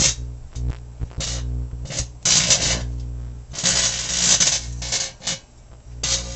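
Steel-mesh lint trap arcing inside a running microwave oven: irregular bursts of crackling and snapping over the oven's steady hum.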